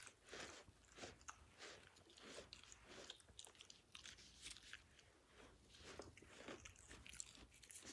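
Faint, repeated soft strokes of a metal-pin brush drawn through a Samoyed puppy's thick coat, a few strokes a second.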